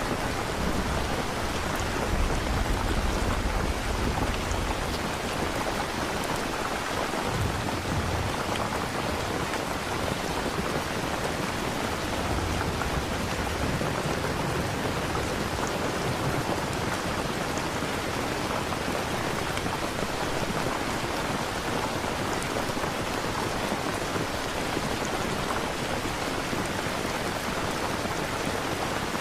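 Steady rain with low rolls of distant thunder, the heaviest rumbling in the first few seconds.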